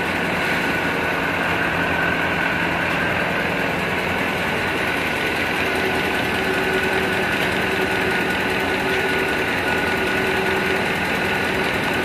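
Band sawmill running steadily without cutting: the blade and its drive give a constant mechanical whir with a faint steady whine.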